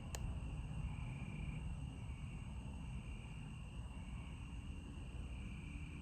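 Crickets trilling steadily at night over a low rumble, with a single sharp click just after the start.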